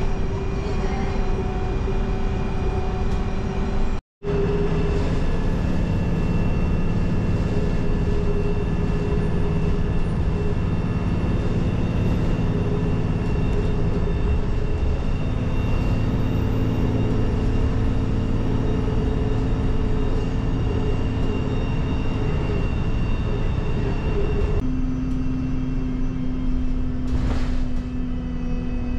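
Steady engine and road noise inside a moving bus, with a thin high-pitched squeal running through it. The sound drops out for a moment about four seconds in, and the engine note shifts lower near the end.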